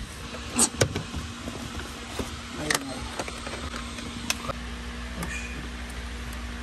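A handful of sharp clicks and knocks from tools and plastic trim being handled during dashboard removal on a car, over a steady hum that sets in about a second in.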